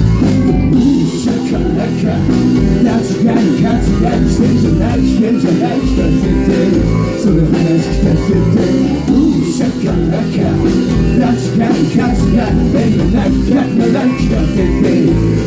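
A band playing a rock song, led by guitar over a steady beat.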